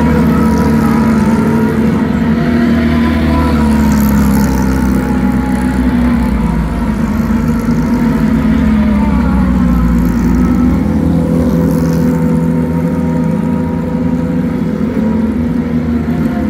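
Porsche 911 GT3 Cup race cars rolling past one after another at low speed, their naturally aspirated flat-six engines running loud and steady with small rises and dips in pitch.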